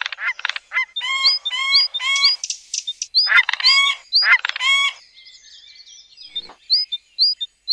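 Bursts of rapid chirping animal calls. Each burst is a quick run of short rising notes, a few per second, with pauses between the bursts. The calls grow fainter and sparser for a couple of seconds near the end, then pick up again.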